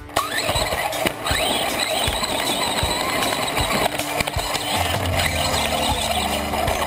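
Traxxas Stampede 4x4 VXL RC truck heard from a camera mounted on it as it drives over rough grass. Its brushless motor whines up in pitch again and again as it accelerates, over a steady noise of tyres on the ground and knocks from the truck bouncing.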